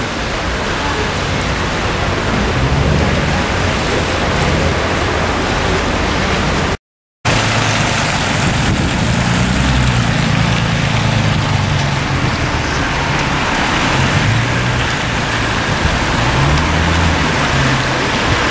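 Wet-road traffic in the rain: a steady hiss of rain and tyres on wet tarmac, with the low engine rumble of a Bentley Continental GT moving off slowly, swelling and fading. The sound drops out for half a second about seven seconds in.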